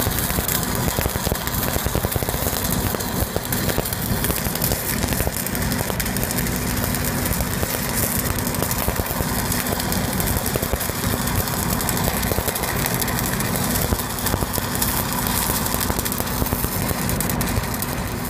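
Shielded metal arc (stick) welding arc crackling and sizzling steadily as an electrode runs a fill pass on 16-inch steel pipe, over the steady drone of an engine-driven welding machine running.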